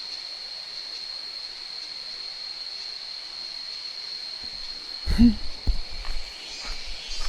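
A steady high-pitched insect drone, typical of cicadas, over the faint rush of a stream. About five seconds in come a brief low vocal sound and a few low bumps on the microphone.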